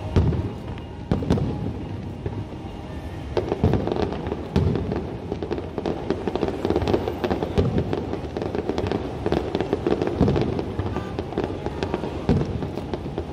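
Fireworks display: aerial shells going off one after another in loud bangs over continuous crackling. The barrage thickens from about three and a half seconds in.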